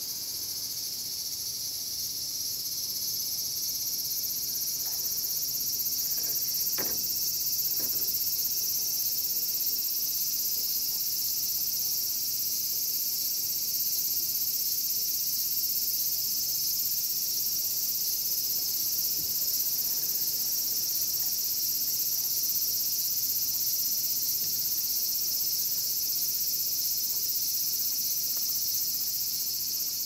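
Chorus of cicadas in the trees: a steady, high-pitched drone that swells a little over the first few seconds.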